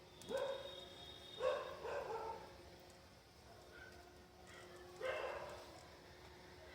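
A dog barking: four short barks, two close together near the start, a pair about a second later, and one more about five seconds in.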